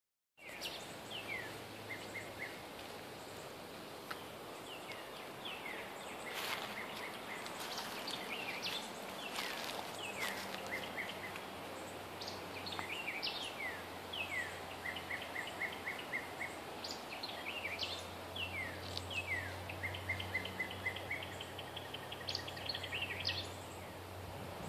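A songbird singing the same short phrase every few seconds: a quick falling note followed by a run of four or five even, rapid notes. Under it runs a steady low hum, with a few brief crackles.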